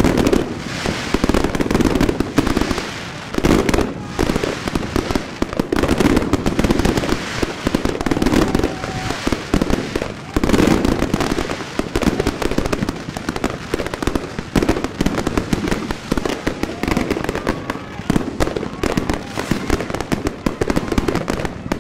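Fireworks and firecrackers going off continuously: a dense, unbroken crackle with frequent sharp bangs.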